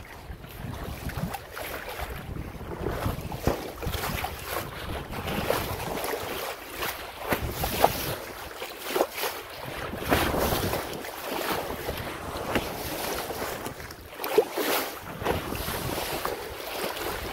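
Bow wave of a Hunter 356 sailboat under sail, water rushing and splashing along the hull, with wind buffeting the microphone. The rush surges unevenly, with a couple of sharper splashes.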